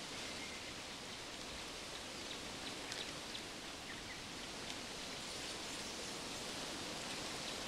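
Steady, quiet outdoor background hiss with a few faint small ticks near the middle.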